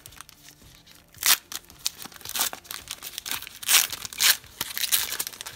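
Hockey card pack's foil wrapper being torn open and crinkled by hand, in irregular crackling bursts, the loudest a little over a second in and around the four-second mark.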